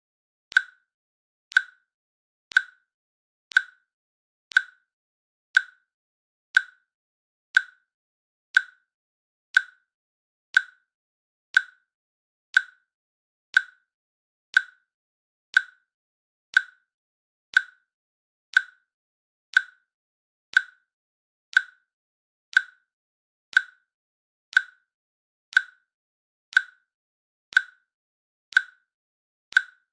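Timer click sound, one short sharp click each second, evenly spaced: the per-second tick of a countdown timer.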